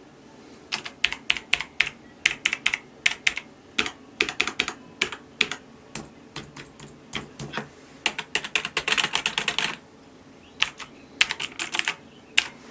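Typing on a mechanical keyboard: irregular runs of sharp key clicks with short pauses, including a quick burst of about ten keystrokes a second a little past the middle.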